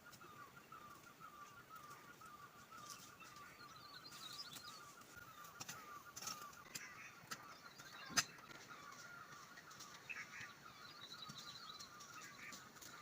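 Faint birdsong: a steady rapid chirping, with scattered higher calls over it. One sharp click comes about eight seconds in.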